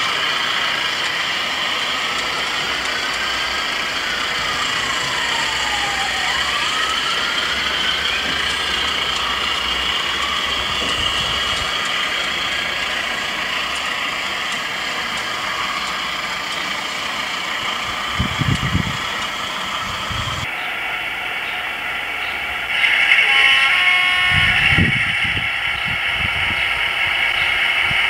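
Sound-equipped (DCC) model diesel locomotive playing a steady diesel engine sound through its small speaker as a train of mineral wagons rolls past. About three quarters of the way in, the sound changes and grows louder.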